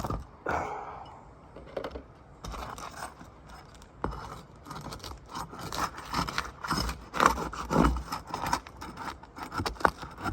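Metal roofing tools scraping and clicking against asphalt shingles as they are pried apart, in irregular bursts. The shingles' sealant strip is tearing away pieces of shingle mat.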